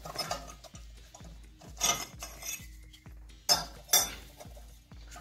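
Bidet drain flange being unscrewed by hand and lifted out of the ceramic bowl, giving a few sharp clinks against the porcelain about two, three and a half and four seconds in. Background music with a steady beat runs underneath.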